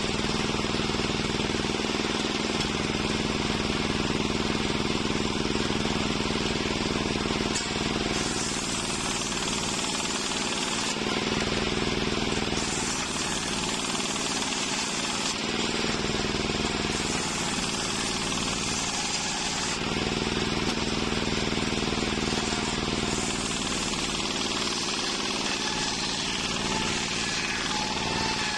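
Large bench-mounted circular saw running and ripping waru (sea hibiscus) planks lengthwise, a steady machine hum under a harsh cutting noise. The cutting noise grows and eases every few seconds as each plank is pushed through the blade.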